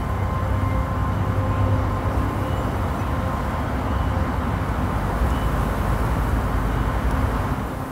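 A steady rumbling roar of noise, loud and heavy in the low end, over a held background music drone.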